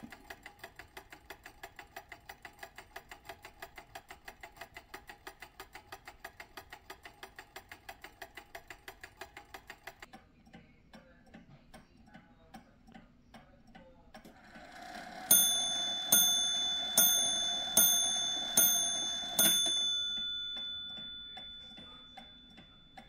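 Antique F. Kroeber arch-top shelf clock. First its movement ticks very fast with no pendulum fitted, about five ticks a second. Then the assembled clock ticks with its pendulum swinging, and about two-thirds of the way in it strikes six times, about a second apart, each stroke ringing on and dying away.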